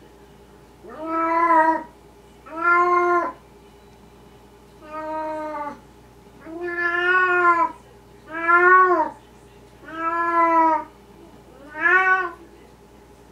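Maine Coon cat meowing repeatedly: seven drawn-out meows, each under a second and arching in pitch, about one every second and a half.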